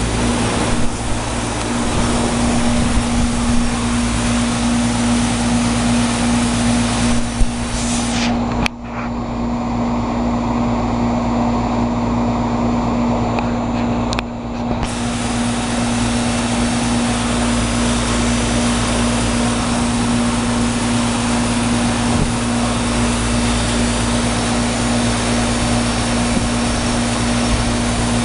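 Outdoor unit of a residential heat pump running in heat mode: a steady compressor hum with a strong low tone under the rush of the outdoor fan. The rushing noise thins out for several seconds about a third of the way in, while the hum carries on unchanged.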